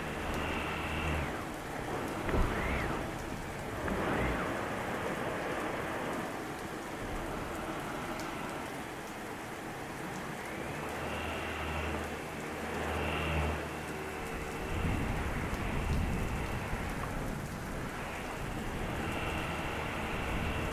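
Heavy rain falling steadily, with rumbles of thunder and a low hum that comes and goes.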